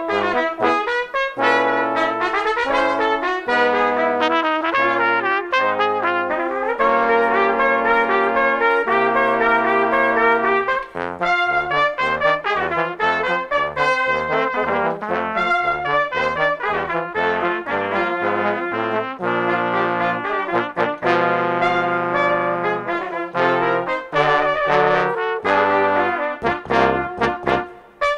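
A brass quintet of trumpet, French horn and three trombones (one of them a bass trombone) playing together, with rhythmic runs of short notes alternating with held chords.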